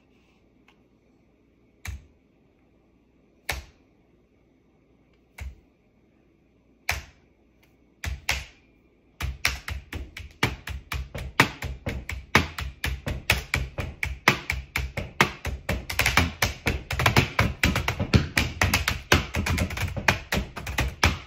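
Laptop keyboard typed on like a drum kit. A few single sharp clicks come a second or two apart, then about nine seconds in a fast, continuous run of drum-like tapping on the keys begins, with low thumps, growing denser and louder later.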